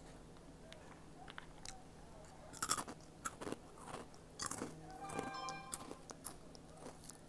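Crunchy Flamin' Hot Cheetos being bitten and chewed with the mouth, a run of irregular crunches, the loudest nearly three seconds in. A short pitched tone sounds about five seconds in.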